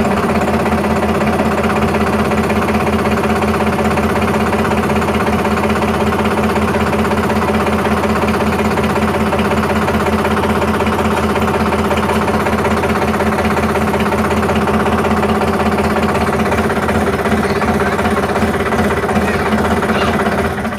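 Sonalika DI 47 RX tractor's diesel engine idling steadily just after a start, a constant loud drone at unchanging speed.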